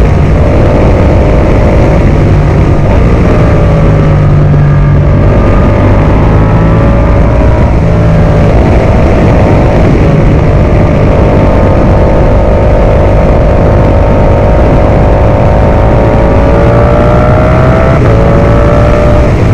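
Ducati Multistrada V4 Pikes Peak's V4 engine running at a relaxed road pace, its pitch sinking and rising slowly with the throttle, over heavy wind rush on the microphone.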